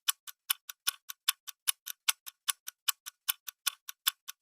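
Clock-style tick-tock sound effect of a quiz countdown timer, about five crisp ticks a second alternating louder and softer, steady throughout.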